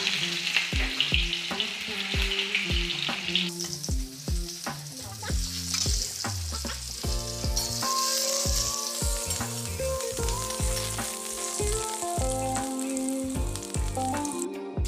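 Sliced onions sizzling in hot oil in a steel kadai, just added to bay leaf and panch phoron. A background music track with a steady beat plays underneath.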